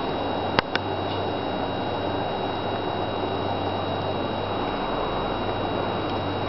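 Steady hiss with a thin high whine over it, broken by two sharp clicks in quick succession about half a second in.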